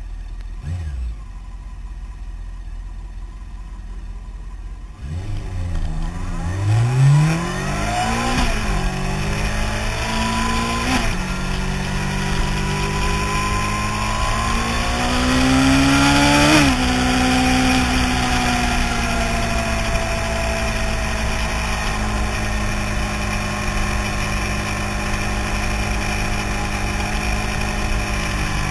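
Honda CBR600F4i sportbike's inline-four engine heard from an onboard camera. A low rumble at first; about five seconds in the bike accelerates hard, its pitch climbing and dropping back with each upshift. A little past halfway the revs peak and fall as the throttle closes, then the engine runs steadily at speed.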